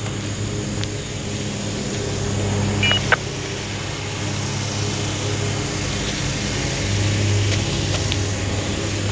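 Distant diesel locomotives of an approaching freight train: a steady low engine drone that swells about three seconds in and again near the end, with a brief high chirp about three seconds in.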